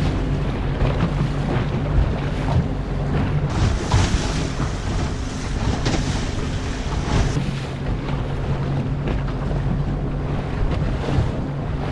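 Yamaha outboard motor running steadily under way on an aluminium runabout, with wind buffeting the microphone and water rushing past the hull. From about three and a half seconds in to about seven seconds the engine drops out under louder splashing water and wind, then comes back.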